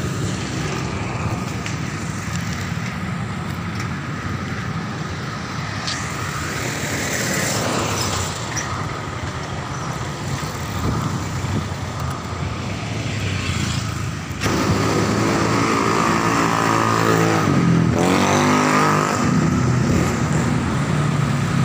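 City road traffic: vehicles passing on a multi-lane avenue. About two-thirds of the way through it suddenly gets louder as a nearby vehicle engine is heard, rising and falling in pitch.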